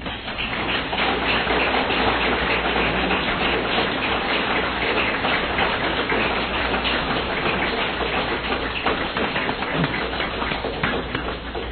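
Audience applauding: a dense patter of many hands clapping that swells within the first second and thins out near the end.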